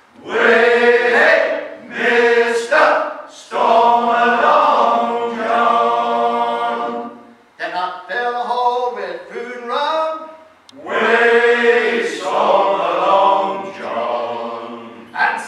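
Male a cappella sea shanty choir singing in harmony, unaccompanied, in phrases with short breaths between them. About eight seconds in the sound thins to fewer voices, and the full chorus comes back in about three seconds later.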